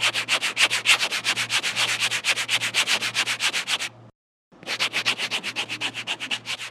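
Rapid, even scratchy scrubbing strokes, about eight a second, as of a brush worked over paper, with a faint steady hum underneath; the scrubbing stops about four seconds in and starts again half a second later.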